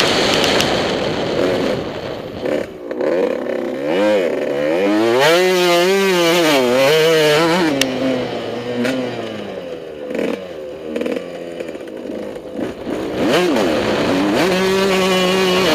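Motocross bike engine heard from the rider's helmet, revving hard, with the revs climbing and falling in waves about four to eight seconds in, dropping to a rougher, quieter off-throttle stretch, then back on steady high revs near the end.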